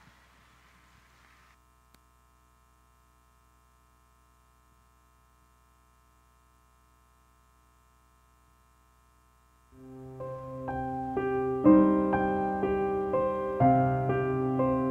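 Near silence, then piano music comes in about ten seconds in, swelling over the next two seconds into a run of sustained notes.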